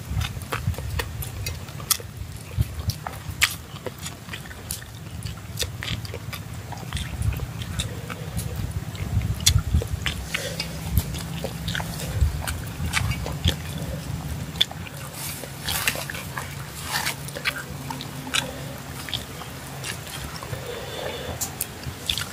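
Close-up chewing and mouth sounds of people eating rice and grilled fish: many small sharp clicks and smacks over a low steady rumble.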